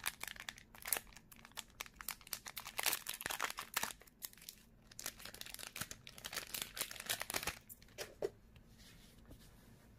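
Foil wrapper of a Dragon Ball Super Card Game booster pack crinkling and tearing as it is opened and handled, a dense crackle that stops about eight seconds in.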